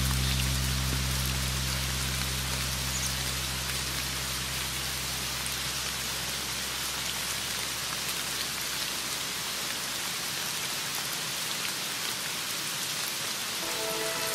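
Steady rain falling, an even hiss. The low sustained notes of a Javanese gending instrumental fade away over the first few seconds, and the next tune begins right at the end.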